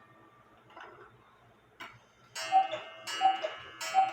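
Cuckoo clock striking the hour. After a quiet start, about two and a half seconds in it begins calling the two-note cuckoo with a ringing strike on each call, three calls about 0.7 s apart.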